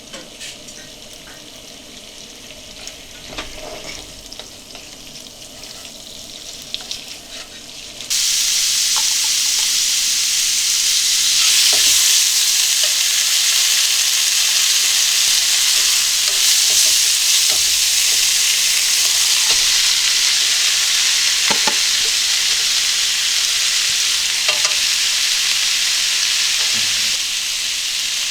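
Food frying in a pan, starting suddenly about eight seconds in with a loud, steady sizzle, while a utensil stirs it with occasional light taps. Before that there are only quieter scattered clicks and handling sounds.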